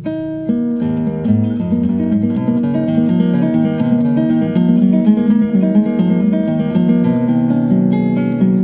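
Background music on guitar, a run of plucked notes starting right at the beginning.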